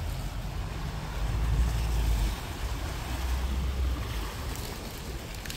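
Wind buffeting the microphone in low rumbling gusts, swelling about a second in and again around three seconds, over small waves washing against a rocky shore.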